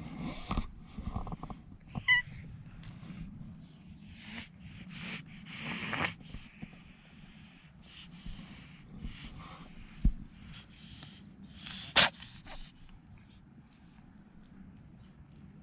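A kitten with a slight cold sneezing and snuffling: a noisy burst about six seconds in and a sharper, louder one near twelve seconds, with a short high chirp about two seconds in.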